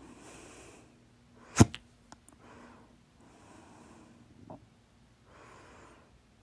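A woman hiccuping: one sharp, loud hiccup about a second and a half in, with a couple of small clicks right after it and a smaller hiccup later. Soft breaths in and out come between the hiccups. She puts the hiccups down to eating too much and drinking soda.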